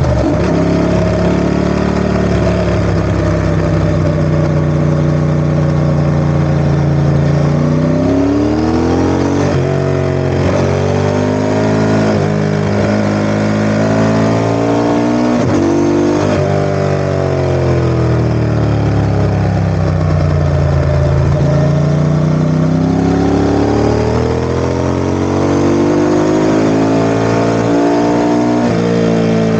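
Ducati ST4S's 90-degree V-twin engine running, steady for the first several seconds, then its speed repeatedly climbing and falling away, with a few sudden jumps in pitch.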